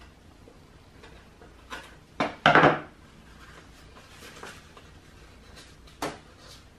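Scissors snipping paper a couple of times, then a short loud clatter as the scissors are set down on a wooden table, followed by faint paper handling and one more click near the end.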